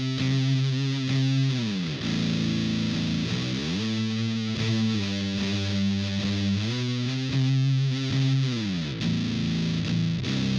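Electric guitar played through the Gorva Design LARAN fuzz pedal, a muff-style fuzz with a MOSFET input stage, into an amp: long, heavily distorted sustained notes, about two seconds each, with slides up and down between them.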